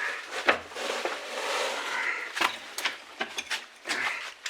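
Scattered sharp knocks and clicks, with a rustling scrape around the middle.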